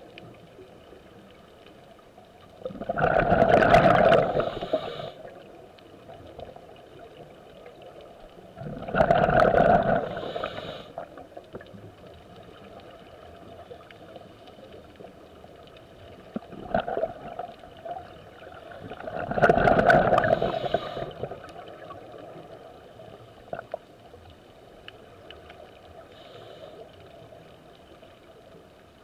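Scuba diver's exhaled breath bubbling out of a regulator underwater, three rushes of about two seconds each, several seconds apart. A steady underwater hiss with a few faint ticks fills the gaps.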